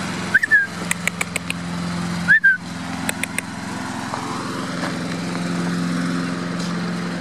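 Petrol lawn mower engine running steadily in the background. Two short, loud, high chirps about two seconds apart and a few sharp clicks stand out over it.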